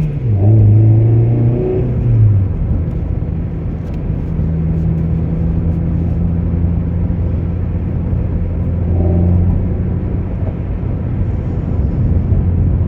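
Car engine and road noise heard from inside the cabin while driving: the engine note is higher for the first two seconds, drops, then holds a steady drone.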